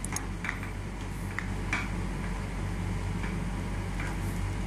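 A few light clicks and taps as a TV power cord and its plug are handled against a wall, over a steady low hum.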